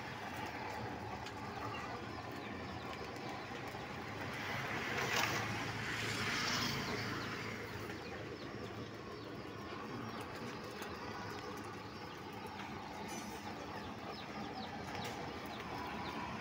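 Outdoor background noise with birds calling. A swell of rushing noise rises and fades about five seconds in.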